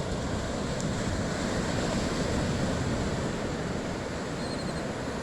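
Ocean surf washing onto the beach, a steady rushing that swells slightly midway and eases off, with wind on the microphone.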